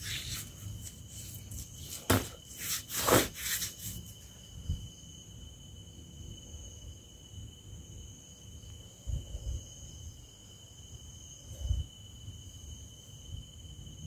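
Night insects trilling steadily at a high pitch. A burst of scraping and knocking handling noise comes about two to four seconds in, and a couple of dull low thumps come later.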